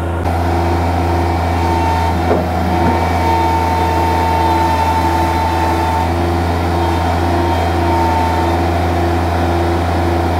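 Bobcat skid-steer loader's engine running steadily with a deep hum, with a high whine that comes and goes over it.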